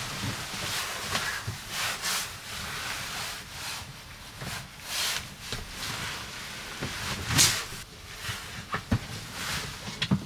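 Irregular rustling and rubbing swishes from objects being handled, with a few sharp clicks near the end.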